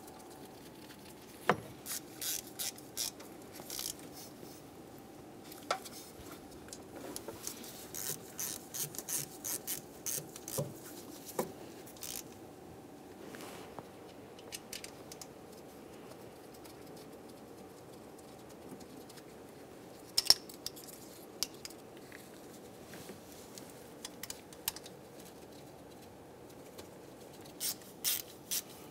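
Scattered small metallic clicks, clinks and rattles of fuel rail mounting bolts and a socket wrench being handled as the 10 mm bolts are started and run in, with one sharper click about twenty seconds in. A faint steady hum lies underneath.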